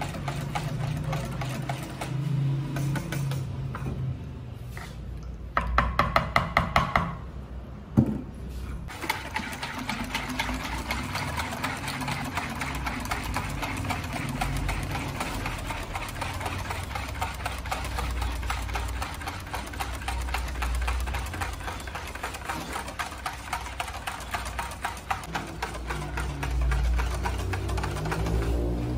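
A metal spoon stirring briskly in a plastic bowl of yeast-and-water mixture, a fast rhythmic clatter that is loudest about six seconds in. Water is poured into a bowl from a kettle partway through, over a steady low machine hum.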